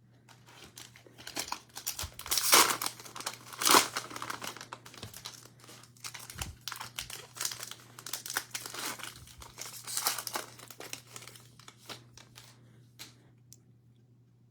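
Plastic cellophane wrapper of a 2020-21 Prizm basketball cello pack being torn open and crinkled, in irregular bursts that are loudest about two and a half and four seconds in and again about ten seconds in, fading out near the end. A faint steady hum runs underneath.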